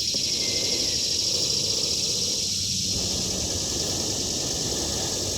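Cicadas droning steadily in a high-pitched chorus, with a low, even rumble underneath.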